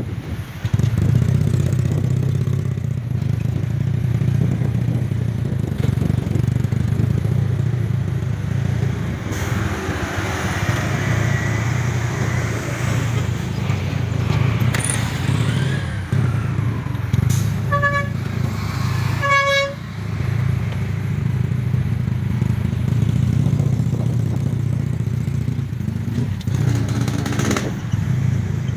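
Vehicle engine running steadily while riding along a dirt road. Two short horn beeps come about two-thirds of the way through, a second and a half apart.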